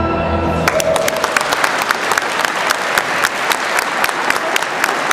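Orchestral dance music ends, and within a second an audience bursts into steady applause, many hands clapping at once.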